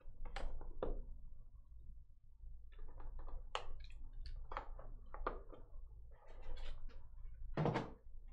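Cardboard box being opened by hand: a box cutter slitting the seal stickers, then the lid lifted off and a foam insert handled. Irregular taps, clicks and scrapes, with a longer, louder scrape near the end.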